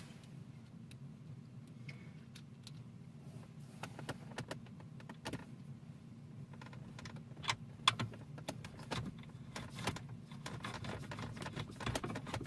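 Small metallic clicks, ticks and rattles of screws being fitted and driven into a car's centre console trim with a screwdriver, irregular and bunching up in the second half, over a steady low hum.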